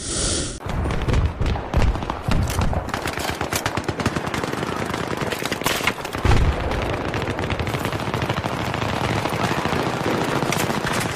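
Rapid, continuous gunfire, a dense stream of cracks with heavier low thumps about a second in and again around six seconds.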